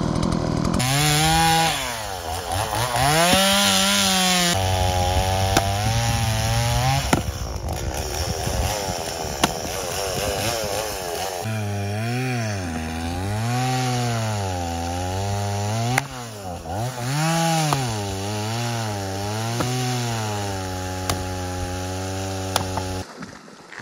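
Gas chainsaw engine running loud, its pitch repeatedly revving up and sagging as the saw goes in and out of a cut, with a few sharp knocks along the way. It stops near the end.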